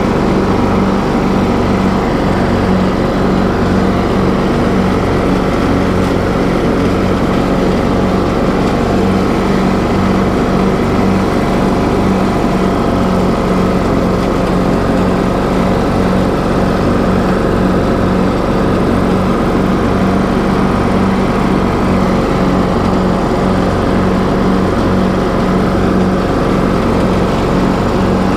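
TroyBilt riding lawn mower engine running steadily at constant speed as the mower drives across the lawn, with an even low drone and no change in pitch.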